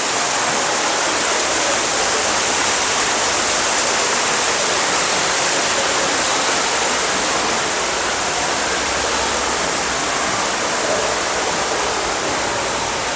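Steady rushing of falling water, like a waterfall, constant and hissy with no break.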